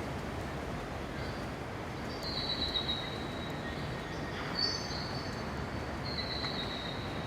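A bird gives high whistled calls, each under a second long and falling slightly in pitch, about three times over a steady background rumble and hiss of a large enclosed hall.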